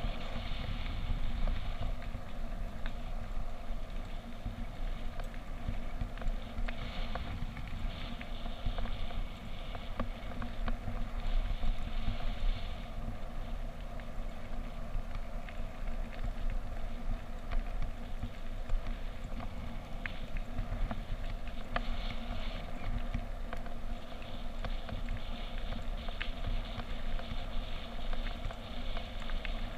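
Steady running noise of a vehicle or boat under way: a low rumble with a constant drone and scattered faint clicks.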